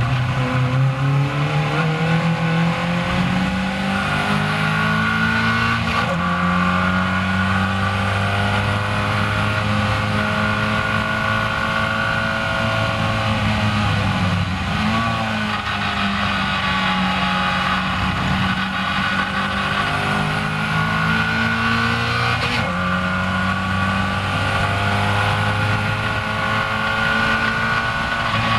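Caterham Seven race car's four-cylinder engine heard from its own open cockpit, revving hard as it accelerates out of a slow corner and up through the gears. The pitch climbs steeply at first, drops with a gear change about six seconds in and another near the end, and wavers briefly midway.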